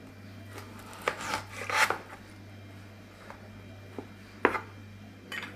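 A knife cutting a lemon, with several short knocks of the blade against the cutting board at uneven intervals.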